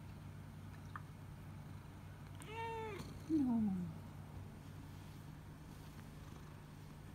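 Long-haired tabby-and-white domestic cat meowing twice. First comes a short meow that rises and falls about two and a half seconds in. Then a louder, lower call slides downward in pitch.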